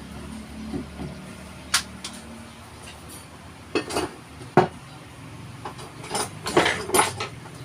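Hand tools knocking and clinking on nails and lumber during carpentry: about seven irregular sharp metallic knocks, the loudest a little past the middle, with a cluster near the end.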